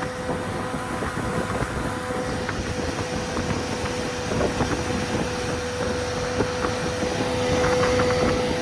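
Evinrude outboard motor running at a steady speed as the boat moves, a constant hum over a noisy rush, getting a little louder near the end.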